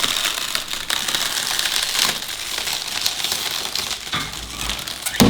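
Continuous crinkling and crackling made of many small clicks, with a sharper, louder click near the end.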